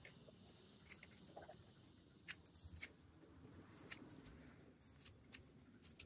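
Faint snapping and crackling of a woody shrub being cut and pulled out by hand, with a few sharp clicks scattered through and a low rustle.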